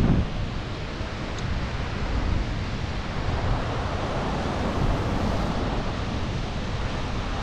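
Steady rush of a fast whitewater mountain river, with wind buffeting the microphone.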